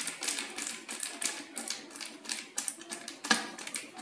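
Plastic laser toner cartridge parts being handled and fitted by hand: a run of irregular clicks, taps and scrapes of hard plastic, the sharpest about three seconds in.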